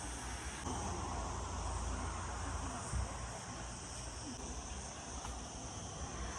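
Steady high chirring of insects, with a low rumble underneath and a brief thump about three seconds in.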